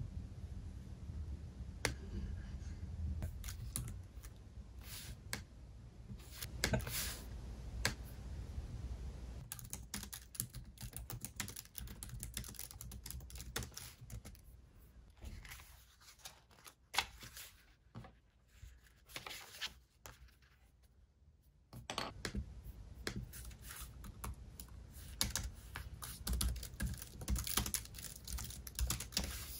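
Typing on a MacBook Air laptop keyboard: quick, irregular key clicks in bursts, with a short pause about two-thirds of the way through.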